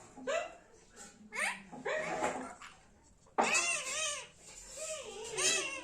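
Indian ringneck parrot calling and chattering in about five short bursts, each a quick run of pitch-bending, warbling notes.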